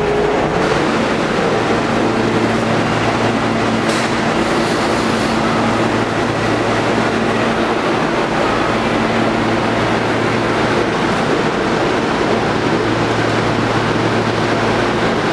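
Kawasaki R160B subway train standing at the platform with its doors open, a steady low hum from the idling train over the constant din of the station. A sharp click about four seconds in.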